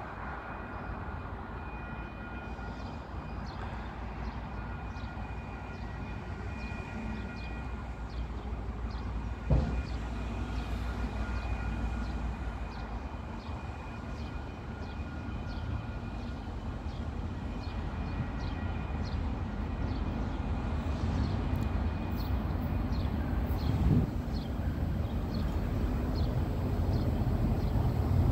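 Two DFB-class diesel-electric freight locomotives approaching from a distance: a low engine rumble that grows steadily louder. Two short thumps stand out, about ten seconds in and again near the end.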